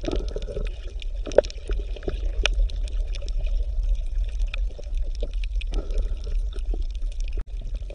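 Water sound: a steady low rumble with gurgling and scattered small pops and clicks.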